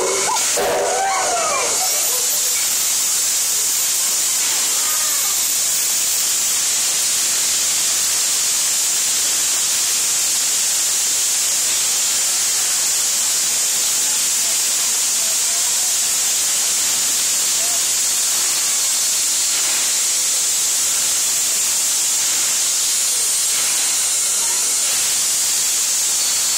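Steam locomotive standing at a platform and blowing off steam: a loud, steady hiss that holds unchanged throughout.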